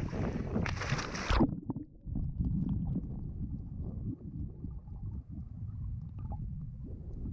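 A snorkeler jumps off a dock into the water with a splash. About a second and a half in, the high end cuts off as the sound turns muffled and heard from underwater, leaving low sloshing and rumbling of water and bubbles.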